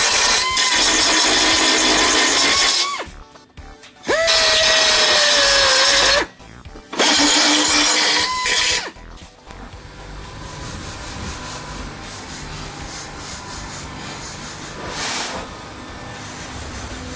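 Electric belt file sander grinding down welds on thin sheet steel, in three runs of a few seconds each that stop suddenly. The motor whines steadily, and its pitch sags under load in the second run. After the third run a quieter steady noise continues.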